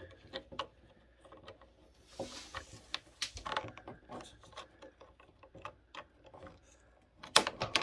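Irregular light clicks and taps of hard 3D-printed plastic being handled: a printed headlight pushed against its opening in the printed body, too tight to go in because the opening hasn't been sanded. A brief rustle comes about two seconds in, and a few louder clicks near the end.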